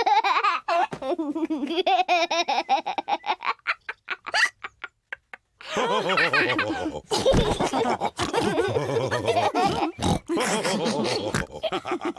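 Cartoon pig characters laughing, several voices together in fast pulsing laughs. The laughter breaks off into a second of silence about halfway, then starts again with more voices overlapping.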